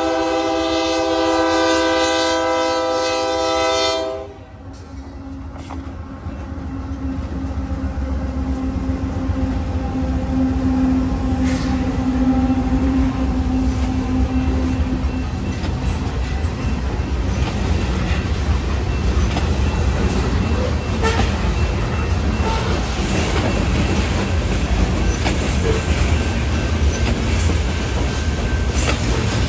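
Union Pacific freight locomotive's air horn sounding one long blast that cuts off about four seconds in. Then comes the steady rumble and clickety-clack of the freight cars' wheels rolling past over the rails.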